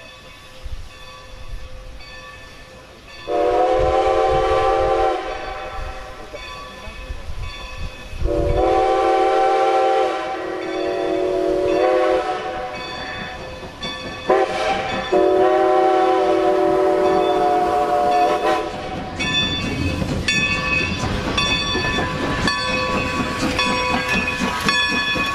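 Steam locomotive chime whistle sounding the grade-crossing signal: two long blasts, one short, then a final long one. After the whistle a steam locomotive passes close by, with rapid clanking and knocking over a rushing hiss.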